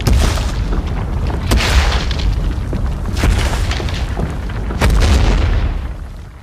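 Deep booms over a continuous low rumble, a heavy hit about every second and a half, four in all; the rumble fades out near the end.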